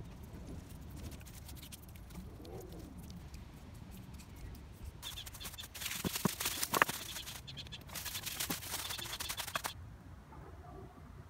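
Plastic cling film crinkling and rustling as it is stretched and wrapped around wooden stool legs coated in paint stripper. It comes in two spells in the second half, with a sharp crackle in the first.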